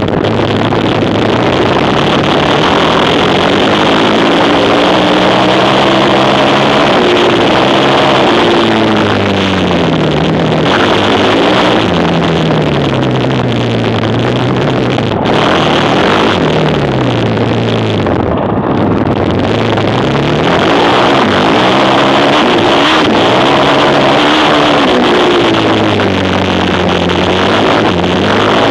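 Quad bike engine revving up and dropping back over and over, its pitch climbing for a few seconds, then falling, several times through.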